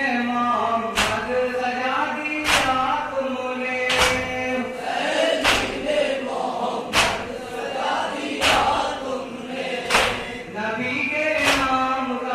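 A group of men chanting a Muharram noha (mourning lament) together, with sharp hand-on-chest slaps of matam about every second and a half keeping time.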